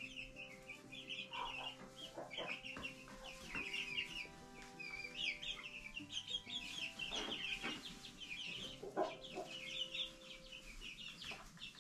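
A flock of young chickens peeping and chirping in quick, overlapping calls, with a few lower clucks now and then.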